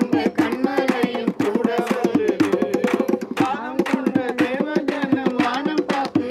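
Group singing a Tamil devotional song, accompanied by a hand-held frame drum, bongos and hand clapping in a steady beat.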